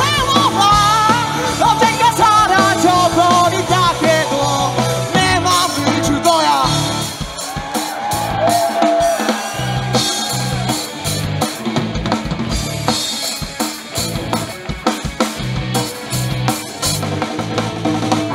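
A live rock band playing, with the drum kit's snare and bass drum hits prominent under electric guitars and bass. A wavering melody line runs through the first few seconds, and the drums carry on with dense, regular strokes after that.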